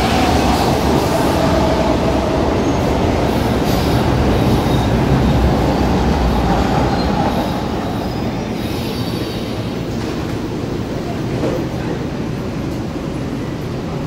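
São Paulo Metro Line 1 train running through the station: a steady rumble of wheels on rails with a faint high whine. It eases to a quieter rumble about seven seconds in.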